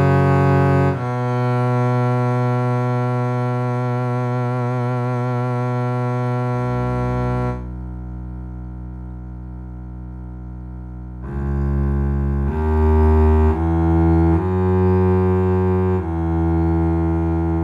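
Roland Verselab MV-1 playing a low, sustained bowed-string-like bass patch from its ZEN-Core sound engine. Long held notes give way, about eight seconds in, to a duller, quieter tone. From about eleven seconds, shorter notes change pitch roughly once a second.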